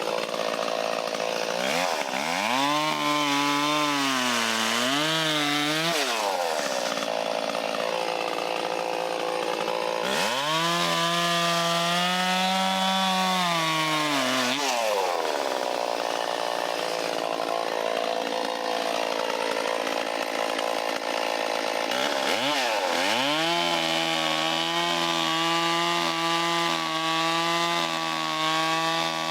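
Stihl 034 two-stroke chainsaw revving up and cutting wood three times, dropping back to idle between cuts. The engine pitch wavers under load during the first cut, and the saw holds at high revs through the last stretch.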